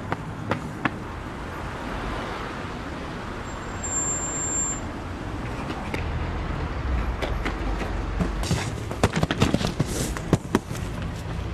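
Street traffic noise, with a rapid run of knocks and bumps near the end.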